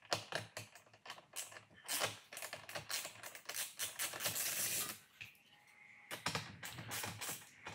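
Socket ratchet wrench clicking in quick runs as screws are backed out, with a short pause about five seconds in.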